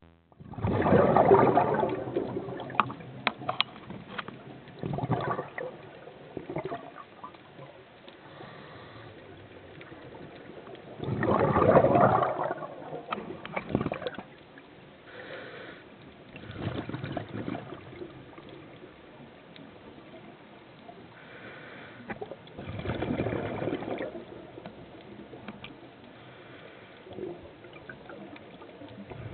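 Scuba diver breathing through a regulator underwater: three loud gurgling rushes of exhaled bubbles about ten seconds apart, with quieter gurgles and clicks between them.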